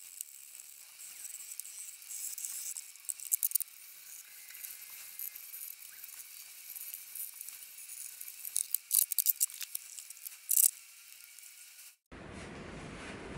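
Hand sanding of the dressing table's timber with a sanding block, heard as a high scratchy hiss with louder rough strokes about three seconds in and again around nine to ten seconds. It cuts off near the end and a steady background noise follows.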